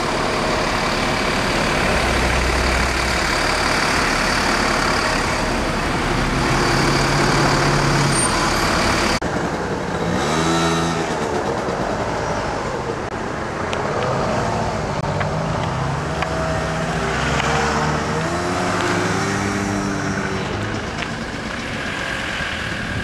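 Road traffic on a busy road: cars and vans running and passing close by, a steady wash of engine and road noise. About nine seconds in the sound changes abruptly at a cut, and after it engine notes rise and fall as vehicles pull away and pass.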